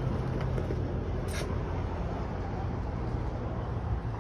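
Steady low rumble and hum of an Amtrak Pacific Surfliner passenger train right beside the platform, with a short hiss about a second in.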